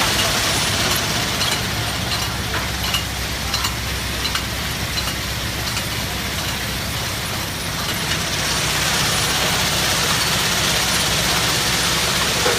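Wheel-bucket sand washing machine running: a steady low motor hum under a broad hiss, with scattered clicks and rattles in the first half. The hiss grows louder after about eight seconds in.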